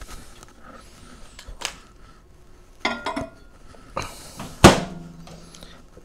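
Compact microwave door swung shut with one sharp, loud latch clack about two-thirds through, after a few soft knocks and clinks as a cup of water is handled inside.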